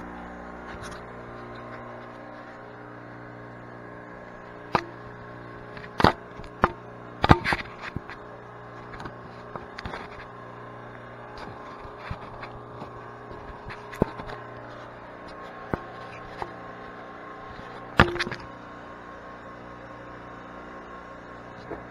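Scattered sharp knocks and clatters of hard objects being handled and set down, the loudest about six, seven and eighteen seconds in, over a steady low hum.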